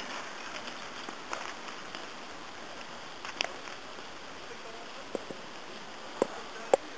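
Sharp strikes of ice climbing tools into a frozen waterfall, a few clicks in the second half, the louder ones with a short ringing tone, over a steady hiss.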